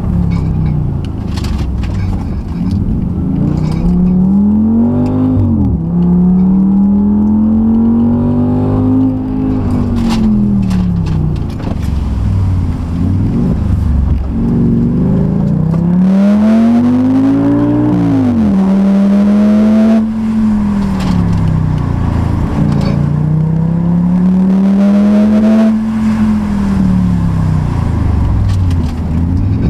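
Audi S6's 5.2-litre naturally aspirated V10 heard from inside the cabin while driving up a mountain road, its note rising under acceleration several times, falling sharply at times and easing off between bends.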